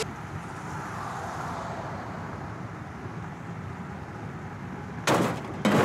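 Steady road and engine noise heard from inside a car. About five seconds in comes a loud crash, with a second loud hit about half a second later, from a car-to-car collision.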